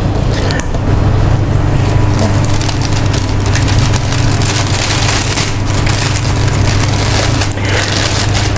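Silicone spatula scraping and pressing thick butter-cookie dough around a stainless steel bowl, a dense run of small rasps, over a steady low machine hum.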